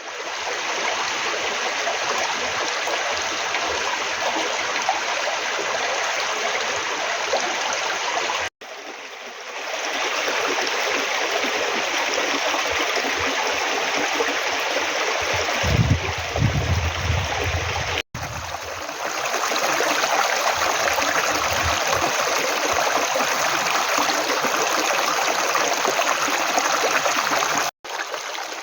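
Mountain valley stream rushing and gurgling over rocks in a steady, loud wash, cut off for an instant three times where takes are joined. A low rumble comes in for a couple of seconds just past the middle.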